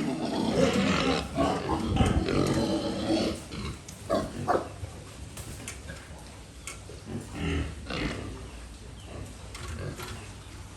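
Pigs calling: a loud stretch of overlapping calls for about the first three seconds, then scattered short calls.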